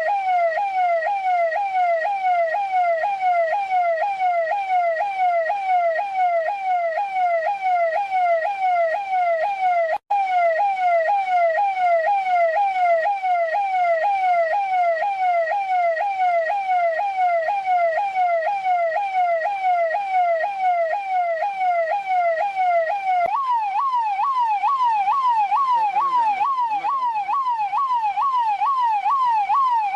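Electronic police siren in a fast yelp, its pitch sweeping in a quick repeating cycle about two and a half times a second. It cuts out for an instant about ten seconds in. About three-quarters of the way through it steps up to a higher pitch and keeps cycling.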